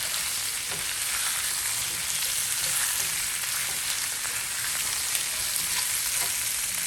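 Chicken wings frying in a pan of stir-fry oil: a steady sizzle peppered with small crackles.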